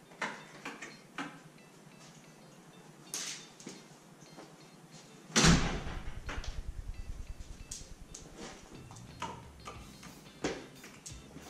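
Scattered clicks and light knocks of handling in a garage, with one loud bang about five seconds in that rattles on for a couple of seconds before dying away.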